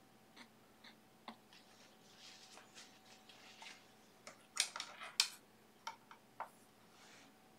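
Faint clicks, light taps and short scrapes of painting tools being handled, with a cluster of sharper clinks a little past halfway, over a faint steady hum.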